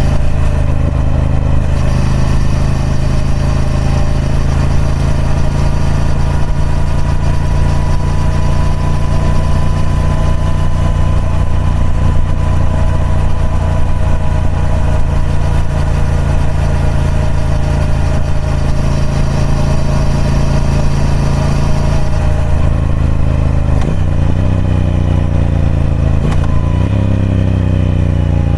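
Triumph Speed Twin 1200's parallel-twin engine running through its stock exhaust, holding a steady note for most of the time, with the pitch shifting over the last few seconds.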